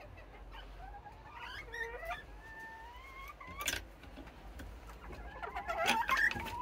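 Serama bantam hens calling with drawn-out calls that step up and down in pitch, overlapping one another. A sharp knock of a wooden board comes a little past halfway, with a few lighter knocks near the end.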